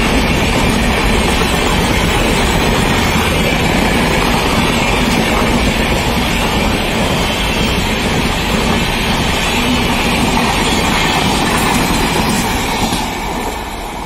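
Red LHB passenger coaches of an express train passing close by at speed: a loud, steady rush of wheels running on the rails. The noise drops sharply about thirteen seconds in.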